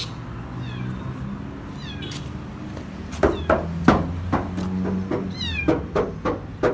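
A kitten meowing in short, high, falling cries, with a string of sharp knocks or thumps starting about halfway through that are louder than the meows.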